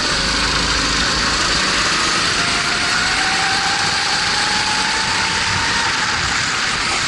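Onboard sound of a racing kart's single-cylinder four-stroke Honda GX270 engine running hard, under a steady rush of wind and track noise. The engine note climbs slowly through the middle and eases near the end.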